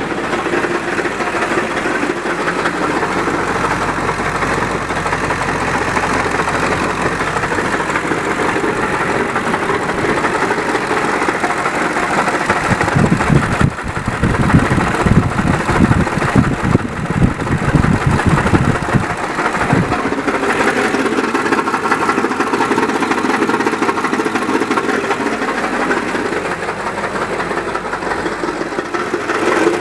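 2003 Ford F-250's 7.3 L Power Stroke turbo diesel V8 idling with an abnormally loud knocking clatter, far louder than normal diesel noise; from about halfway through, for some seven seconds, it turns into heavier, irregular banging. The noise appears at idle and goes away when RPM is raised; the owner does not know its cause.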